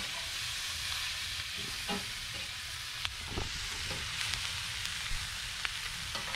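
Sliced bell peppers and onions sizzling in a large cast iron skillet on a wood-burning camp stove, a steady hiss with a few sharp clicks and scrapes as a slotted spatula stirs them against the pan.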